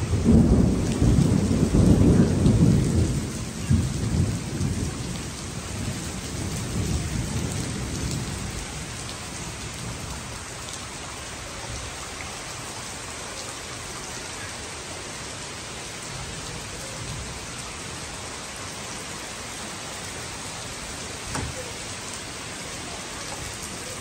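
A long rolling peal of thunder, loudest in its first three seconds and fading away over about eight, over heavy rain falling steadily on leaves and a wet paved yard.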